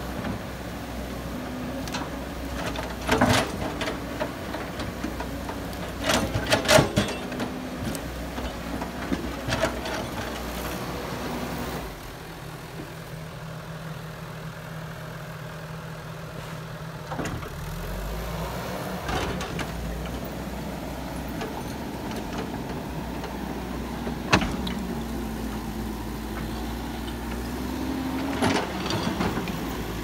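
Caterpillar hydraulic excavator's diesel engine running while the machine works its bucket through brush and earth, with several sharp knocks and cracks along the way. For a few seconds near the middle the engine settles to a quieter, steadier note, and near the end its pitch rises slowly as it takes on load.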